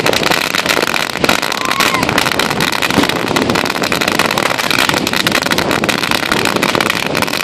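Fireworks crackling and popping without a break: a dense stream of small pops with a hiss behind it, and no single big bang standing out.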